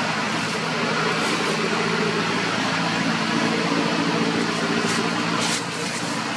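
Steady engine hum, like a motor vehicle idling, over a broad wash of background noise, with a brief hiss about five and a half seconds in.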